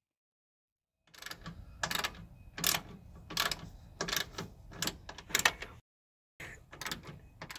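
Socket ratchet wrench with a 10 mm socket clicking in repeated strokes as it turns out the screws of a plastic radiator cover, a sharp click about every two-thirds of a second with finer pawl ticks between. The sound cuts out abruptly twice.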